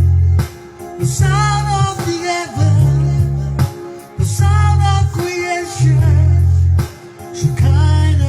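Music: a song with singing over a heavy bass that comes in strong notes about every one and a half seconds.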